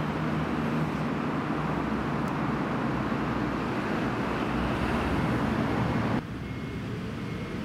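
Steady roadside traffic noise, a broad even rush with no distinct events. It drops suddenly to a quieter level about six seconds in.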